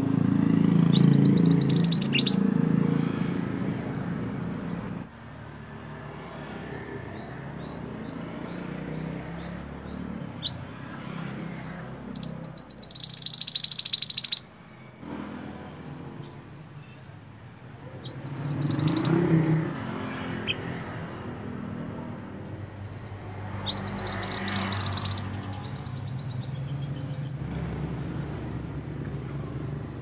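Caged male minivet (mantenan) singing: four bursts of rapid high trilled notes, each one to two seconds long, with scattered single chirps between them. A low rumble runs underneath, strongest in the first few seconds.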